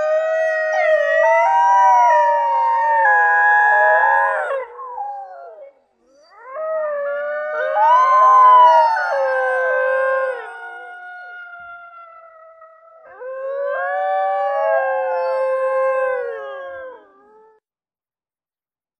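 A chorus of wolves howling, several overlapping, wavering howls at different pitches in three bouts, one howl held on alone between the second and third bouts.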